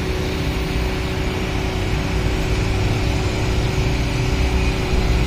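A motor running steadily: a constant hum over a low rumble.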